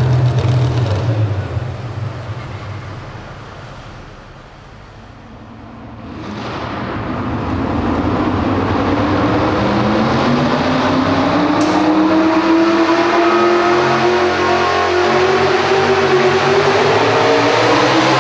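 A Chevrolet pulling truck's diesel engine winds up and runs at high, steadily climbing revs as it drags the weight-transfer sled. Before it builds, another engine's sound fades out over the first few seconds.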